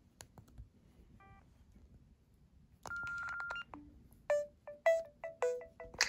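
Cell phone keypad presses with a short key beep and then a steady beep about three seconds in, followed by a ringtone melody of short, bright notes that starts about four seconds in as a ringtone is previewed.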